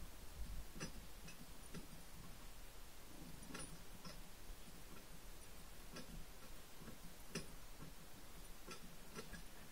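Faint, irregular ticks and taps, about a dozen in all, from a dog hopping on its hind legs while it tugs at a hanging rope toy: its claws on the concrete and the jerking toy.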